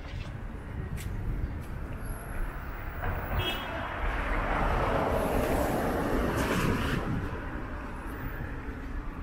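Street traffic: a car passes, its road noise swelling about halfway through and fading again, over a steady background traffic rumble.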